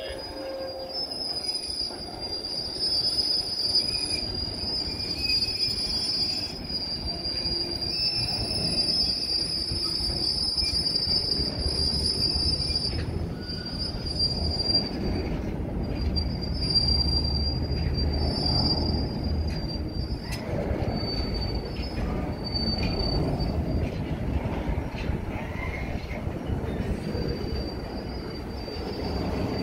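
Freight train of hopper wagons rolling past, wheels squealing on the rails with a steady high-pitched screech that breaks off and returns, over the continuous rumble and clatter of the wagons.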